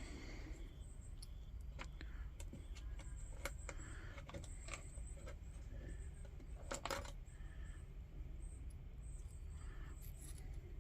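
Small metal lantern parts clicking and clinking as they are handled, a scattering of light taps with a louder double clink about seven seconds in.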